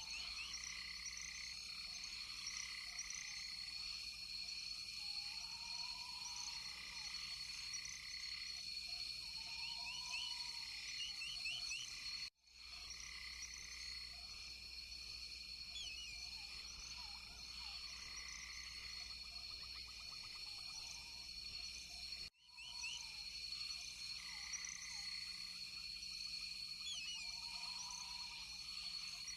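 Tropical rainforest chorus of frogs and insects: a steady high ringing, many short repeated high chirps and now and then a lower rounded croaking call. The whole chorus cuts out for an instant twice, about twelve and twenty-two seconds in.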